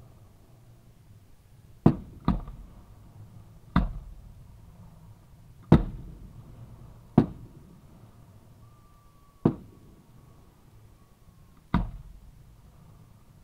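Aerial fireworks going off at close range: seven sharp bangs, one every second or two, each trailing off in a short echo.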